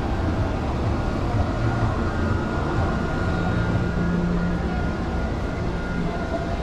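Steady background din of a large indoor exhibition hall: an even low rumble with faint distant voices and a few thin steady tones.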